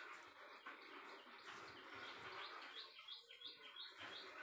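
Faint bird chirping in the background: short high chirps repeating two or three times a second over quiet room hiss.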